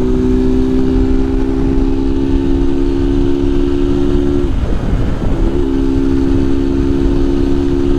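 Honda Titan 150's single-cylinder four-stroke engine running at a steady pitch while being ridden, with wind noise on the microphone. About halfway through, the engine note breaks off for roughly a second, then comes back steady.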